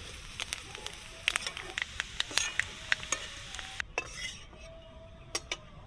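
Metal spatula scraping and clinking against a steel kadai as fried chopped coconut is stirred and scooped out, over a sizzle of hot oil. The clicks and hiss stop about four seconds in, leaving a quieter stretch with a couple of taps.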